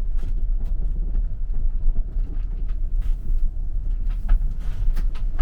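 Sprinter 4x4 van driving, a steady low rumble with scattered clicks and rattles.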